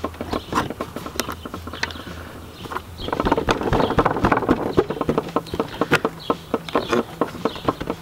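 Serrated kitchen knife stabbing and prying into a plastic car bumper cover to open a hole, a run of sharp, irregular clicks and cracks as the plastic gives. The clicks come thicker from about three seconds in.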